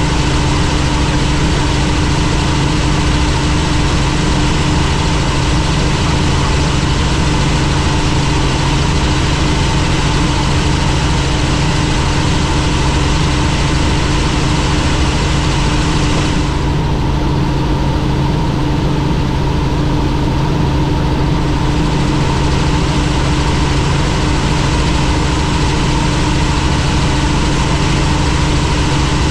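Helicopter in flight: a loud, steady drone of engine and rotor with a constant hum. The higher hiss drops away for about five seconds a little past the middle, then returns.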